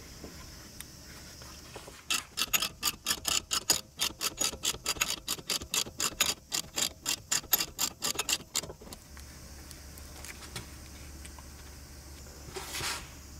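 Brake caliper piston tool being turned to push a Toyota Prius front caliper piston back into its bore: a run of quick, even clicks, about six a second, starting about two seconds in and stopping after roughly seven seconds. A short hiss near the end.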